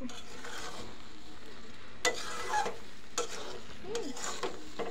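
Metal spatula stirring and scraping thick jujube pickle in a metal pan in several separate strokes, the strongest about two seconds in, while the pickle simmers and sizzles as its juice is boiled down.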